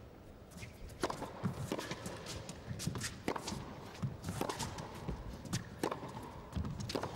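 Tennis rally on an indoor carpet court: sharp racket strikes and ball bounces come every half second to second, with players' footsteps between them. The first second is quiet before the strikes begin.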